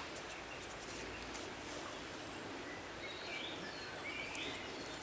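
Steady hiss of a river running over stones, with a bird chirping twice a little past halfway.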